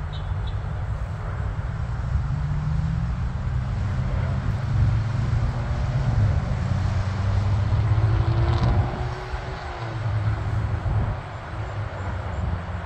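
Twin-engine business jet's turbofans on final approach and landing: a steady low rumble, with a falling whine about eight seconds in.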